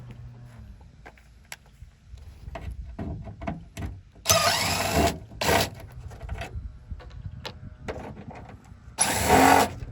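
Cordless drill/driver running in three short bursts, backing out fasteners, with light clicks and knocks of tool and parts being handled in between.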